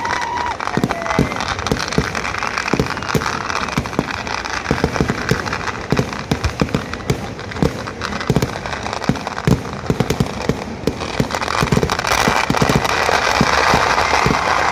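Festival fireworks display: a fast, continuous barrage of firework bangs, several a second, from aerial shells and ground crackers going off. In the last few seconds a loud hissing rush rises under the bangs.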